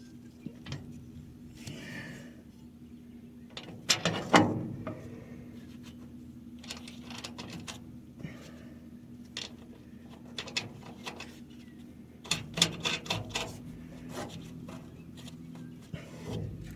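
Scattered metal clinks and knocks of tools and machine parts being handled during reassembly of a haybine's crimper drive shaft and bearings, with a sharper knock about four seconds in and a quick run of clanks near the end, over a steady low hum.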